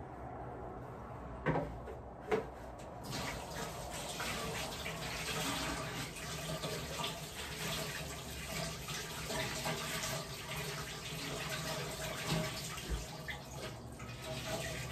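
Two light knocks, then a tap turned on about three seconds in, with water running steadily into a sink.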